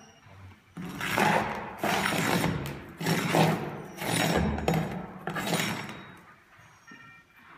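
Rustling and scraping in about five bursts of a second or so each, as a hand and jacket sleeve move over and lift gritty asphalt roof shingles.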